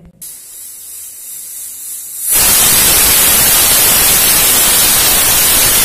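Pressure cooker whistle: steam hisses softly from the weight valve, then about two seconds in the weight lifts and steam blasts out in a loud, steady rush. The whistle shows the cooker has reached pressure while the dal cooks.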